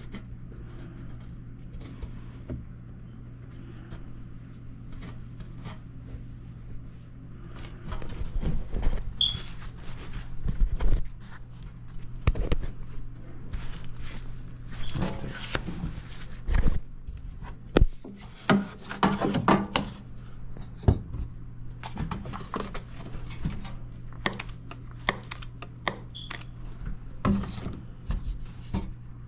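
Hands and tools working on an air-conditioning unit: scattered scrapes, rubs and short knocks, busiest in the second half, over a steady low hum.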